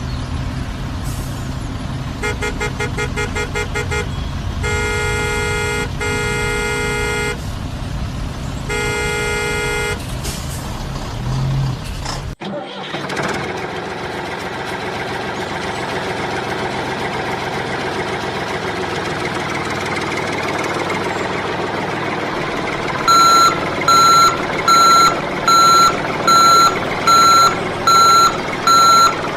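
Heavy vehicle engine running, with a run of rapid horn toots followed by three longer horn honks. After a sudden cut, a steady machine drone continues, and a reversing alarm starts beeping evenly, about one and a half beeps a second, near the end.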